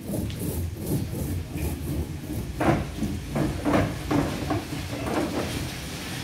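Metal laminating roller worked back and forth over wet, resin-soaked fibreglass mat on a boat hull, a scraping crackle with each stroke, the strokes coming about twice a second from a few seconds in, over a steady low rumble.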